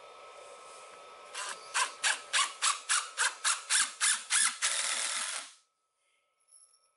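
DeWalt cordless impact driver driving a screw into a pre-drilled pressure-treated 2x4, starting about a second and a half in with short spurts about four a second, then a steady run of about a second that cuts off suddenly.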